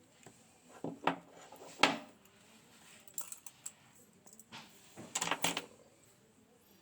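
Small metal lock parts clicking and clattering against a hard surface while a GEGE pExtra cylinder lock is taken apart: a few sharp clicks in the first two seconds, the loudest about two seconds in, then a quick cluster of clicks around five seconds in.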